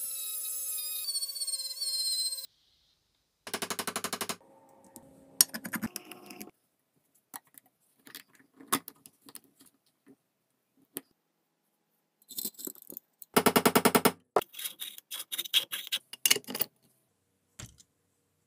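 A rotary tool whining against a buffing wheel as it polishes a metal pencil-sharpener housing, its pitch sagging under load, then stopping. After that come scattered metallic clicks and clatter as the sharpener's small steel parts are handled and fitted, with two short bursts of fast rattling.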